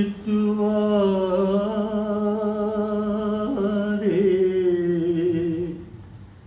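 A man singing alone without accompaniment, drawing out long, slightly wavering notes in a chant-like melody; the voice stops shortly before the end.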